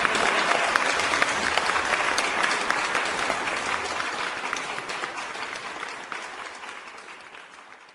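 Crowd applause, many hands clapping together, fading out gradually over the second half.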